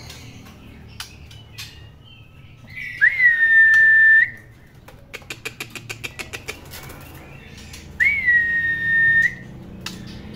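Young male white-rumped shama giving two loud, long whistled notes, each a short upward slide held on one steady pitch. Between the notes is a quick run of clicks.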